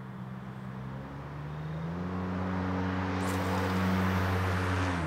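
A motor vehicle passing by: a steady engine hum that swells over a few seconds, then drops in pitch and fades near the end as it goes past.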